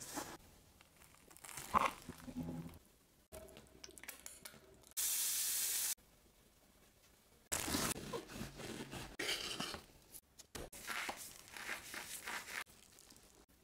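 A string of short steak-preparation sounds cut together: crackly tearing and crunching as ribeye is handled and sliced, with a steady hiss of sizzling lasting about a second, five seconds in.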